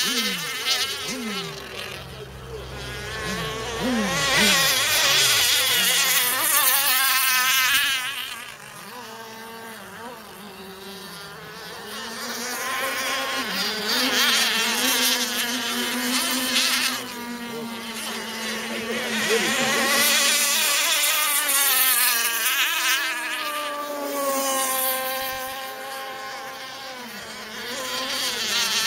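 Radio-controlled rigger hydroplane's modified Zenoah two-stroke gas engine running at speed, a high-pitched engine note that wavers in pitch and grows louder and fainter several times as the boat runs past.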